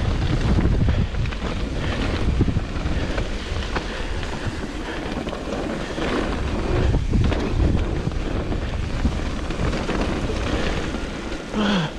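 Wind rushing over the camera microphone as a mountain bike descends a wet dirt trail at speed, with a steady low rumble of tyres over dirt and rocks and scattered knocks and rattles from the bike.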